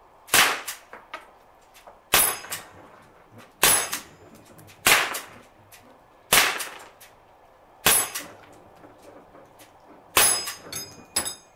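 Sig Sauer MPX .177 semi-automatic pellet gun, running on high-pressure air from a bulk-fill tank, firing seven sharp shots spaced one to two seconds apart. Several shots carry a high metallic ping of the pellet striking the steel paddles of the resetting target. A quick cluster of smaller clicks follows the last shot.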